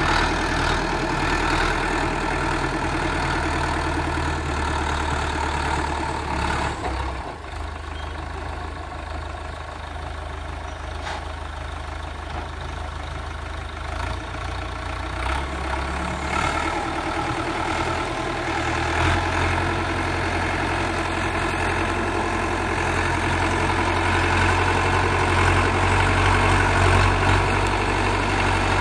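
YTO Agrimaster 4x4 tractor's diesel engine running steadily as the tractor works a front dozer blade through earth and rocks. The engine sound drops back for several seconds partway through, then grows louder and fuller again in the second half as the tractor pushes into the rock pile.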